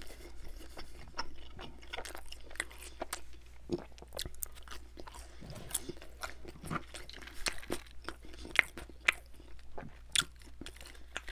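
Close-miked chewing of crunchy pizza crust: irregular crunches and wet mouth clicks, with a few sharper clicks near the end as a drink is sipped from a glass.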